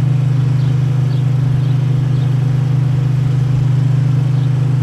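Lawn mower engine running at a steady speed: a loud, even, low drone.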